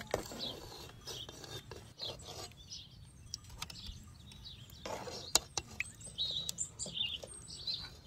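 Metal ladle scraping and clinking against a metal cooking pot and serving bowl as stew is ladled out, with a sharp clink about five seconds in. Birds chirp throughout.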